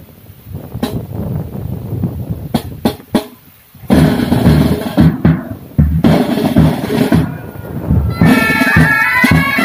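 Pipe band drum corps of snare, tenor and bass drums playing, soft for the first few seconds and loud from about four seconds in. The bagpipes come in near the end.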